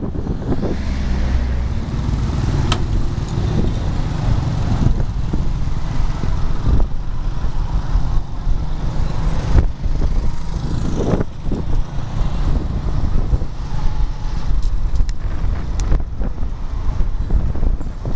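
Riding a small motorbike through town traffic: the bike's engine running under a steady low rumble of wind and road noise, with other motorbikes and cars going by.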